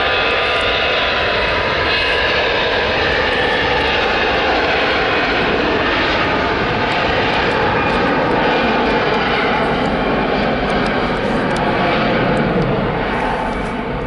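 Jet airliner passing close by, its engines making a loud, steady rushing noise that eases slightly near the end.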